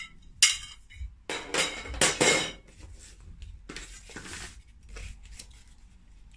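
White metal tubes of an IKEA Mulig clothes rack clinking and knocking together as they are handled, with several sharp clatters in the first half and lighter scraping and rustling against the cardboard packaging after.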